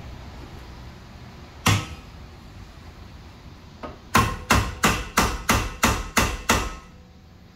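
Hammer striking metal at a car's rear brake assembly: a single blow, then a quick run of eight blows at about three a second, each with a short metallic ring.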